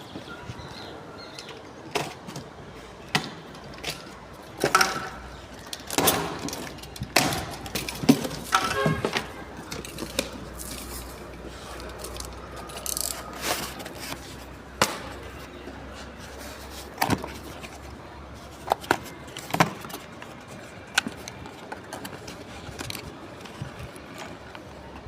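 Irregular knocks, bumps and scrapes of a boxed hybrid solar inverter and its packaging being unpacked and handled, busiest in the first half.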